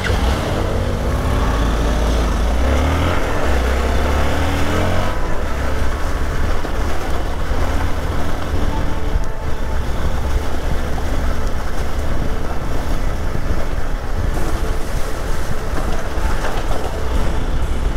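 Hero XPulse 200 single-cylinder motorcycle pulling away, its engine note rising during the first five seconds, then riding on steadily with heavy wind rumble on the microphone.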